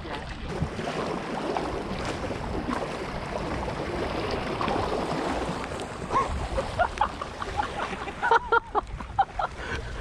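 Steady rain and wind noise over the sea, with a string of short sharp sounds in the last few seconds.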